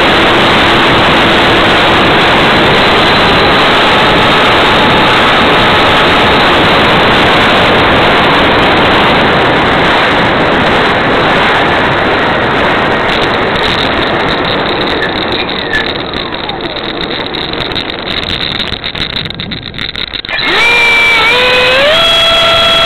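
E-flite Habu's electric ducted fan heard from the jet's onboard camera: a loud, steady rush of fan and air that gradually eases as the throttle comes back on the runway. About twenty seconds in, the fan spools up again with a whine that rises in steps and then holds steady at high power for the takeoff.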